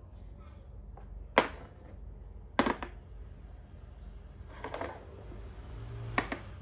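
Plastic makruk (Thai chess) pieces clacking against the board and each other as a capture is made: three sharp clacks, the second the loudest, with a softer scraping clatter between the last two.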